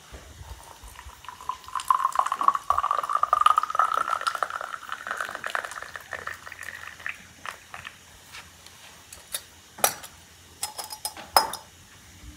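Hot water running from a samovar's tap into a pear-shaped tea glass, the pitch of the stream rising steadily as the glass fills. Two sharp clinks follow near the end.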